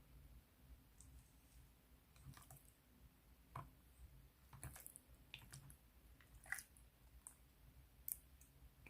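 Slime being pressed and stretched by hand, giving faint scattered small clicks and pops, the sharpest about two-thirds of the way in and again near the end.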